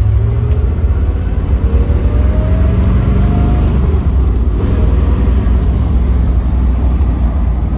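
Small-block Chevrolet 350 V8 of a 1973 Corvette C3 4-speed convertible driving, heard from the cockpit as a loud steady low rumble. Its pitch rises over the first few seconds as the car accelerates and drops about four seconds in.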